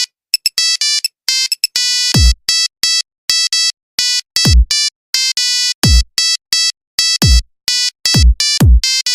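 Electronic smartphone ringtone: a tune of short, clipped synth notes. About two seconds in it is joined by deep bass hits that drop sharply in pitch, repeating about every second and a half.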